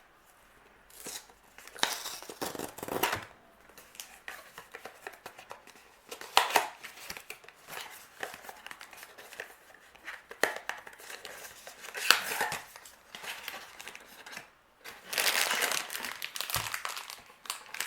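A cardboard mystery box being opened by its tab: tearing, paper and cardboard rustling and crinkling, with a few sharp clicks and snaps, the busiest stretch a little before the end.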